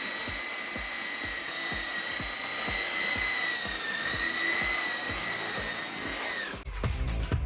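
E-Sky Hunter coaxial RC helicopter's twin 180-size electric motors whining steadily in flight, the pitch dipping a little midway and falling near the end. About six and a half seconds in, the whine gives way to music with a heavy beat.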